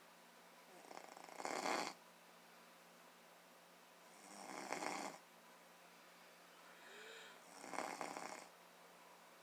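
Slow, regular snoring: three rasping snores about three and a half seconds apart, each swelling to a louder peak.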